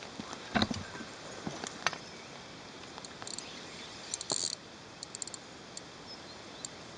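Scattered sharp clicks and knocks over a steady hiss, the loudest knock about half a second in, with a short rattle around four seconds and a few quick ticks just after.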